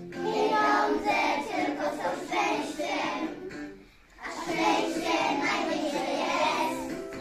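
A group of young children singing together in unison, with a short pause between phrases about four seconds in.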